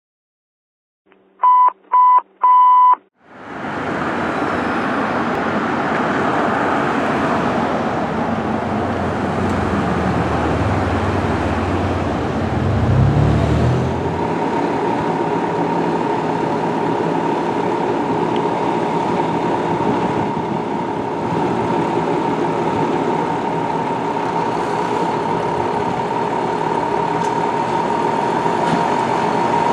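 Three short electronic beeps, then the steady run of a 2010 KME Severe Service fire engine's diesel, with a low rumble swelling near the middle. From about halfway a steady high tone runs over the engine.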